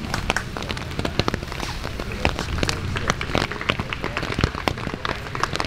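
Rain pattering, heard as many sharp, irregular drop clicks over a steady hiss.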